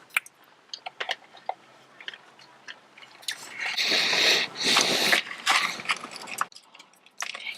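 Sweethearts candy hearts being crunched close by: a few small clicks, then from about three seconds in a loud crunching in several surges that stops about two-thirds of the way through.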